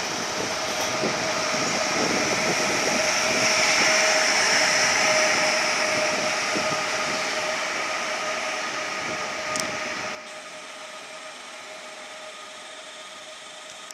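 Pesa Elf EN76 electric multiple unit arriving along the platform: wheel-on-rail rolling noise with a steady whine from its electric drive, loudest a few seconds in and then fading. About ten seconds in it cuts abruptly to a quieter steady hiss.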